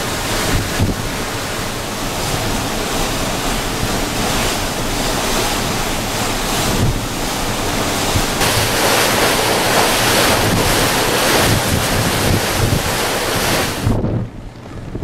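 Strong wind rushing over the microphone with a steady low hum underneath, as when filming from a moving ferry. The wind noise drops off suddenly near the end.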